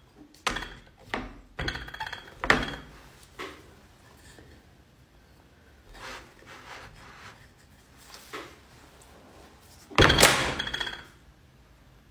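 Wooden rolling pin and hands knocking and tapping on a board of dough and flour, several separate knocks over the first few seconds. About ten seconds in comes one louder sudden thump with a short rush of noise as the pile of flour is struck and bursts up.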